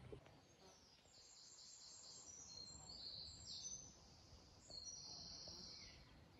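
Near silence with faint, high-pitched bird chirps.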